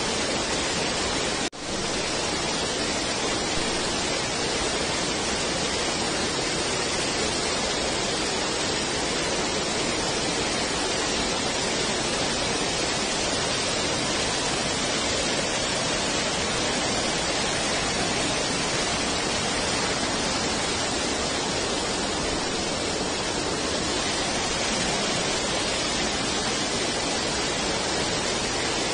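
Waterfall in spate, water rushing steadily over rock, heard as an even, unbroken noise. The sound drops out briefly about a second and a half in.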